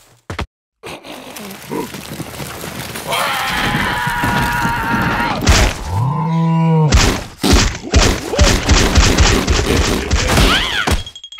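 Cartoon sound effects: a heavy dung ball rolling, with a rumble that builds and grows louder. About six seconds in comes a character's short groan that rises and falls, followed by more rolling rumble and thuds.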